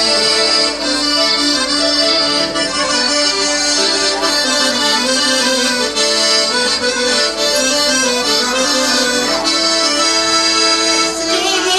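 Accordion played through a microphone and PA, a continuous dance tune whose melody steps between held notes, accompanying a line dance.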